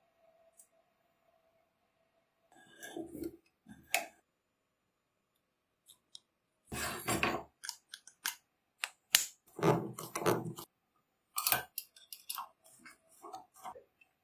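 Clicks, taps and light scrapes of small steel parts handled and pressed together while a wooden-handled screwdriver is reassembled: a coil spring fitted into its steel sleeve and a ball bearing pressed into the handle end. The sounds come in short separate bursts, sparse at first and much busier from about halfway through.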